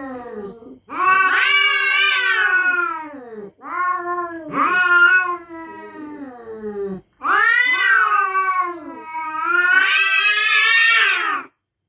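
Cats caterwauling in a territorial standoff: three long, drawn-out yowls that waver up and down in pitch, each lasting a few seconds with short breaks between them.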